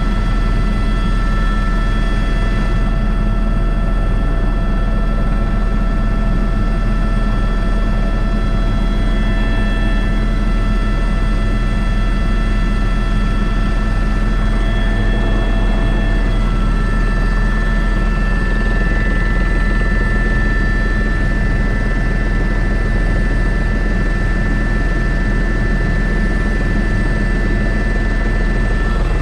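Airbus H125 helicopter in flight: a steady, loud rotor and turbine drone with thin high whines over it. Partway through, the whines shift slightly in pitch.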